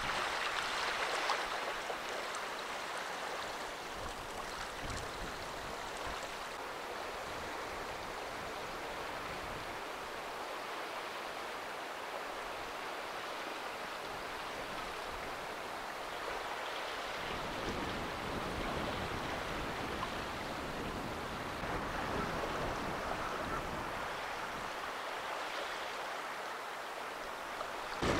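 Steady wash of shallow water and small waves on a sandy shore, with wind rumbling on the microphone now and then, most strongly about two-thirds of the way through.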